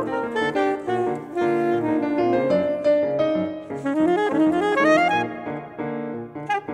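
Soprano saxophone and grand piano playing jazz together, with a quick rising run of notes midway.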